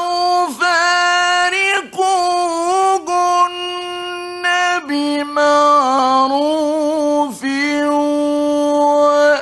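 A man reciting the Quran in a drawn-out melodic style, holding long ornamented notes with brief breaks between phrases. The pitch steps down to a lower note about five seconds in.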